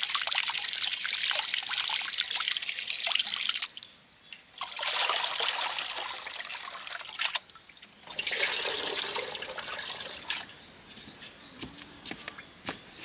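Rice being washed by hand in a plastic bowl sitting in a metal basin of water: splashing and swishing as the grains are rubbed, and cloudy rinse water poured off through the fingers. The sound comes in three spells with short pauses between, then goes quieter with a few small knocks near the end.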